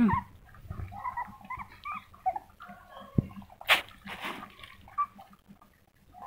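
Puppies whimpering in many short, high squeaks, with a sharp knock a little over halfway through.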